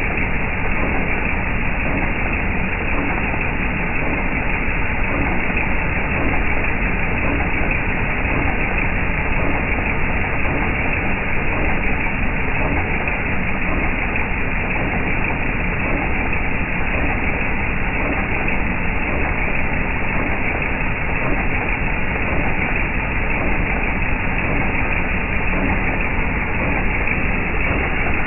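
Jeep TJ Wrangler's 4.0-litre inline-six engine running steadily, with a knocking noise whose cause has not yet been found.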